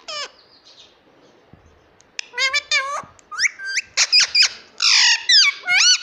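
Indian ringneck parakeet calling: one quick falling squawk at the start. After about two seconds it breaks into a run of loud, high, pitch-gliding squawks and chattering calls.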